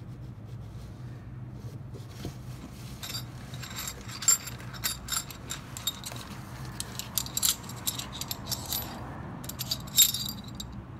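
Thin metal electric-skateboard motor-mount plates clinking and scraping against each other as they are handled and lifted out, among the rustle of foam packing wrap. Sharp, ringing clinks come in quick clusters, the loudest about 4 s in and near the end; a steady low hum runs underneath.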